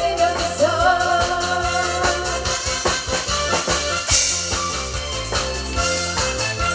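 Trot (ppongjjak) music with a steady drum beat under a held, wavering lead melody line.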